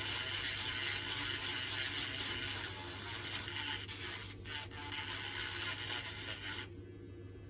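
Small grinding pen running, its tip scraping dirt off a hairdryer's switch contact to clean it. It stops suddenly near the end.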